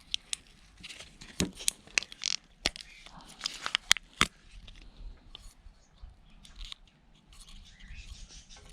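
Plastic parts of a Bluetooth speaker being cut and prised apart by hand: a run of sharp clicks and snaps, thinning out after about four seconds into softer scraping.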